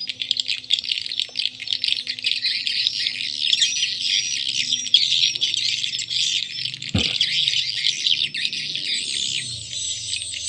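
Recorded swiftlet calls played through two horn tweeters, a dense stream of high chirps and twitters. A swiftlet call-sound track and a colony roosting track play together, the kind used to lure swiftlets into a nest house. A single brief low knock about seven seconds in.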